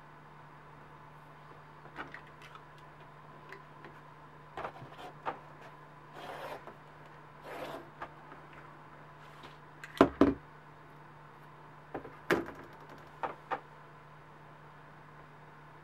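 A steel ruler and a leather template being handled and moved on a cutting mat: scattered light taps and clicks, two short sliding rubs a few seconds apart, then two louder knocks near the middle and a few more taps near the end, over a faint steady hum.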